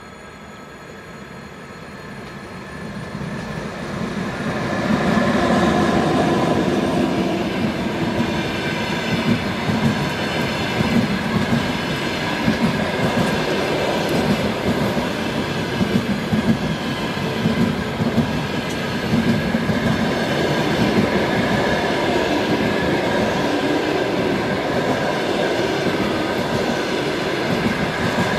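EP1 AC electric locomotive with a passenger train approaches, growing louder over the first five seconds. The passenger cars then roll past with a steady rumble and repeated knocks as the wheels cross the rail joints.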